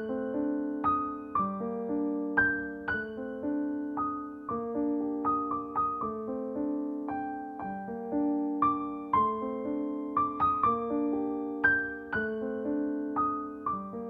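Background piano music: single notes of a melody struck and fading over held lower chords.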